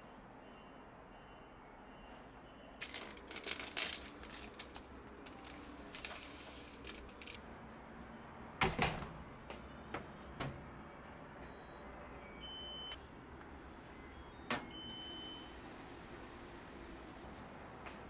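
Knocks and clatter around a Whirlpool washing machine, with one loud thump near the middle. After that come short electronic beeps from its control panel as buttons are pressed to start the tub-cleaning cycle.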